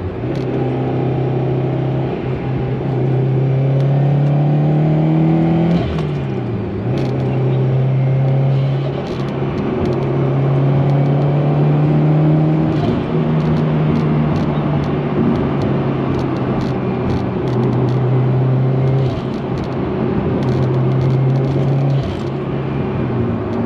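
Car engine and exhaust under acceleration in a tunnel, pulling up through the gears: the engine note climbs, drops at a shift about six seconds in, and climbs and drops again several more times.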